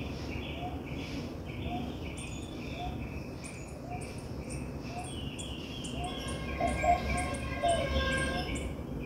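Background animal chirping: a short soft chirp repeating evenly about every three-quarters of a second, over a steady pattern of higher insect-like chirps. A few louder calls with held notes come in near seven seconds.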